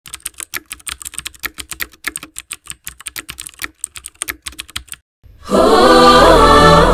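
A fast, irregular run of keyboard typing clicks that stops about five seconds in. After a brief gap, loud music with choir singing begins.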